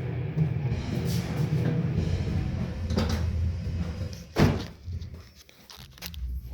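Background music with a few sharp knocks over it, the loudest about four and a half seconds in.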